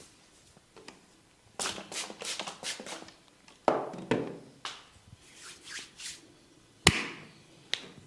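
Barber's hands working a customer's head: about a second and a half in, a run of fast crackling snaps from hair being pulled and twisted (hair cracking). Several sharp hand strikes on the head follow, then one loud crack near the end.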